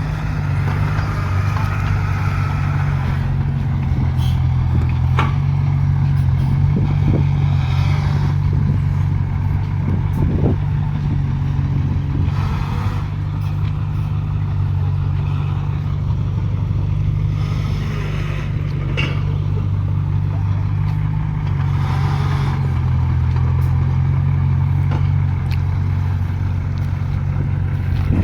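Heavy diesel engine of earth-moving machinery running steadily under load, a constant low drone with brief rises in mechanical noise now and then.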